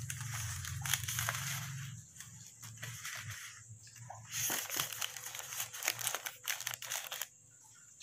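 Water-filled plastic fish bags crinkling as they are handled and packed into a cardboard box, in two spells of rustling with a pause between them, and a quieter moment near the end.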